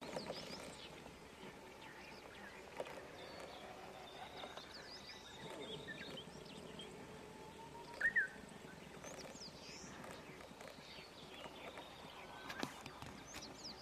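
Faint, scattered chirps and whistles of distant wild birds, with one short, louder rising call about eight seconds in.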